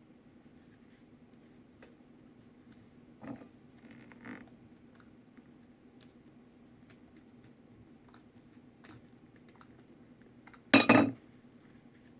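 Handling noises at a crafting table: faint scattered taps and rustles, two soft knocks about three and four seconds in, then a loud, short double clatter of hard objects near the end.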